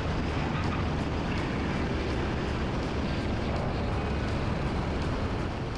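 Cessna 170 light aircraft's piston engine and propeller running steadily, a constant drone with a low, even hum underneath.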